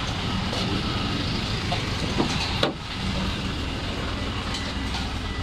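Proton Wira 1.5's four-cylinder engine running steadily at idle, the alternator under test spinning on it. A single short knock a little past halfway.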